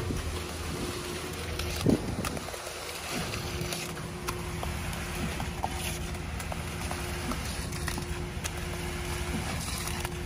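Concrete pump running steadily with a low engine hum, as wet concrete pours from the pump hose into a rebar-filled footing trench with small splatters. A sharp knock comes about two seconds in, and the hum dips briefly just after it.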